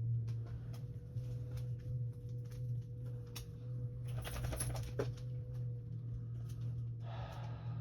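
Neighbour's vacuum cleaner running, heard muffled through the wall as a steady low hum, with scattered light clicks and taps over it.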